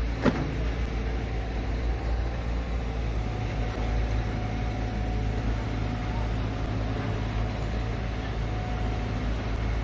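Heavy diesel engine running steadily at low revs, a deep even rumble, with one sharp click about a third of a second in.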